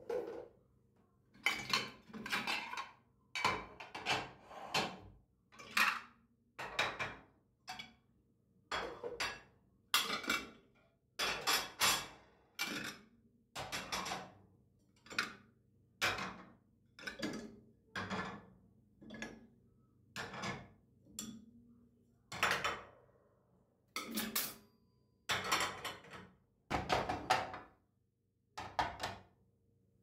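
Ceramic plates and bowls clinking and clattering as they are taken out of a dishwasher's rack and set down on a stone countertop, a long run of separate knocks about one a second.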